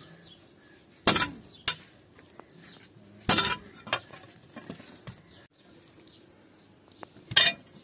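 Sledgehammer blows on a chisel held against an old steel leaf spring on an anvil, cutting the cleaver blank by hand: three loud ringing metallic strikes, the first two about two seconds apart and the third near the end, each followed by a lighter clink.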